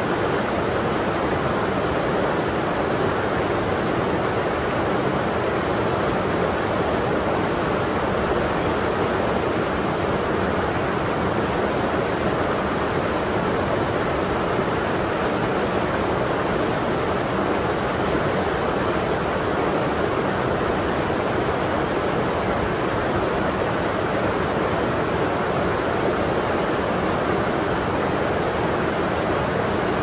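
Mountain stream water pouring in two small cascades between boulders into a pool, a steady, unbroken rush of water.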